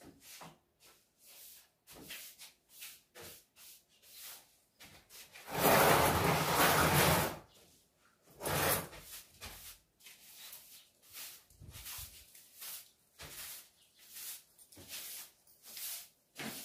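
Broom sweeping a bare cement floor in short repeated strokes. About five and a half seconds in there is a loud scrape of about two seconds as a small fabric sofa is dragged across the floor, then a shorter scrape a second later.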